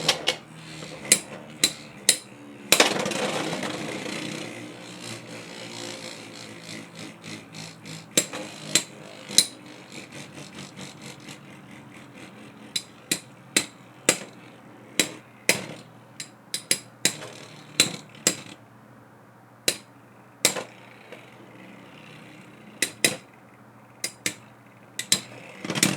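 Silver Wolf and Wizard Rod Beyblade X tops spinning and clashing in a plastic stadium: many sharp plastic clacks of hits. About three seconds in comes a burst of grinding spin that fades over a few seconds.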